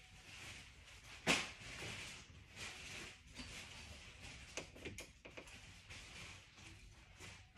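Quiet off-camera handling noises in a small room: soft rustling and small clicks, with one sharp knock about a second in.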